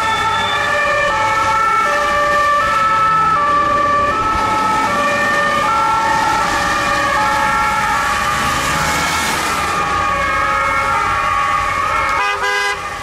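Ambulance's German two-tone siren sounding its alternating high and low notes while driving on a wet road. A passing car's tyres hiss on the wet road about nine seconds in.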